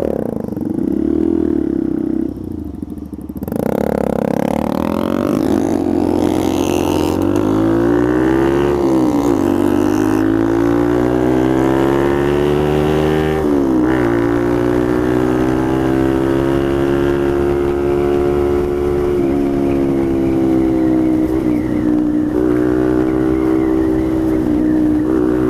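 Motorcycle engine pulling away from a stop, rising in pitch through the gears with a short drop at each shift, about 9 and 14 seconds in, then holding a steady cruise. Wind hiss runs underneath.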